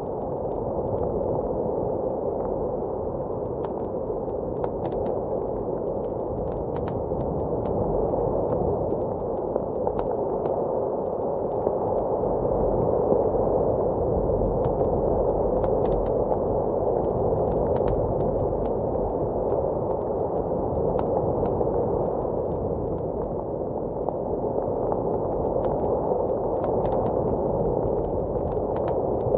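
Blizzard wind as a steady, dull rush of noise, with a wood fire crackling over it in scattered, irregular sharp pops.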